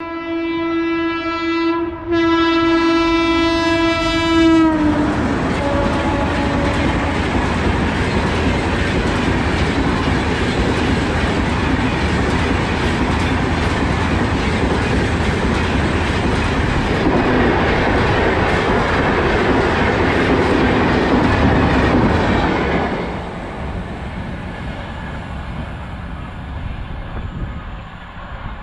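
Train horn sounding in two blasts, the second longer, then an LHB passenger train rushing past at speed with the clatter of its coaches' wheels. About 23 seconds in the noise drops suddenly to a quieter rumble.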